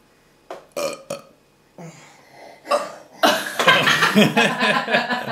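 A young child burping on purpose as a party trick: a long, drawn-out burp that starts about three seconds in. A few faint clicks come before it.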